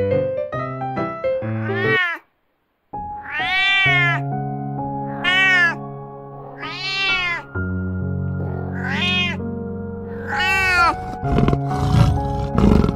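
Domestic cat meowing about six times, each meow rising and then falling in pitch, over soft sustained background music. Piano-like intro music plays for the first two seconds before a brief silence, and low rough rumbling sounds come in near the end.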